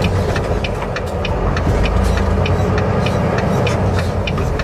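Inside a semi-truck cab: the diesel engine running steadily, with a regular ticking about three to four times a second over it.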